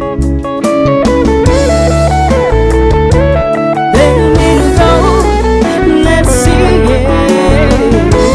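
Live band music: a melody line that bends and wavers over sustained chords and a steady bass, with guitar prominent.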